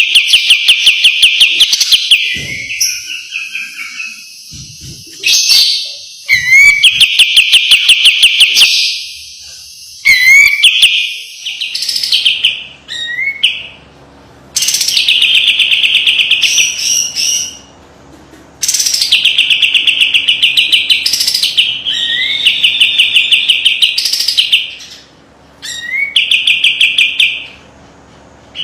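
Sooty-headed bulbul singing its sharp 'besetan' phrases: each starts with a short rising note and runs into a fast, tightly spaced rattling trill lasting one to three seconds, repeated about a dozen times with short pauses between.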